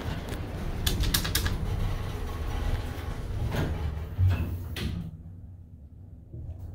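Otis traction elevator's doors closing, with a run of clicks and knocks and a sharp thump just after four seconds in. Then it goes quieter to a low hum as the car starts down.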